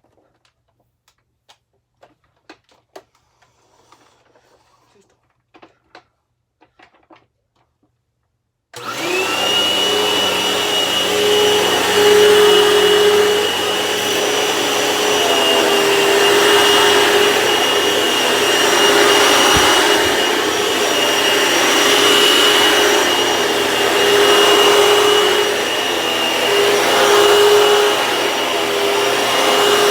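A few faint clicks and knocks, then about nine seconds in a vacuum cleaner with a freshly replaced drive belt switches on suddenly and runs steadily with a high whine over its motor noise.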